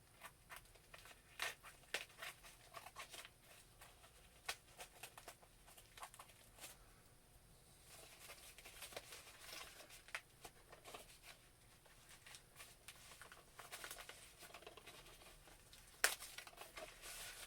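A mailed package being opened by hand: packaging tearing and crinkling, with scattered small clicks and taps as it is handled, and one sharper click near the end.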